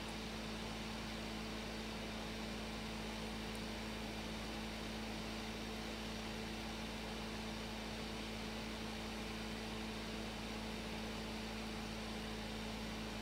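Steady background hum with a constant hiss, holding one low tone and a few fainter ones above it without change; no brush strokes or other sounds stand out.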